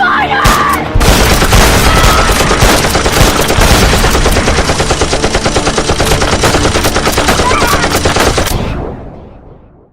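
Rapid automatic gunfire like a machine gun firing continuously, with a short break about a second in, fading away near the end.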